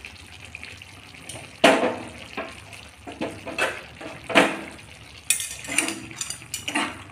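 Thick tomato-based gravy of drumsticks and potatoes simmering in a pan. It bubbles steadily, with irregular plops of bursting bubbles.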